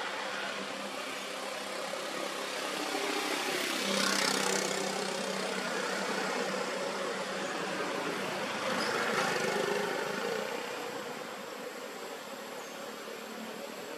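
Road traffic: motor vehicle engines passing, swelling to a peak about four seconds in and again around nine seconds over a steady background hum.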